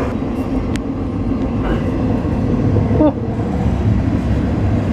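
A train passing, loud: a continuous rumble of wheels on rails that slowly grows louder.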